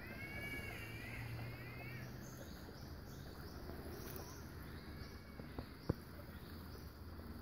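Green catbird giving its drawn-out, wavering wail, like a baby crying, for about two seconds at the start, with a fainter call about five seconds in. Small birds chirp higher up, and a sharp snap comes about six seconds in.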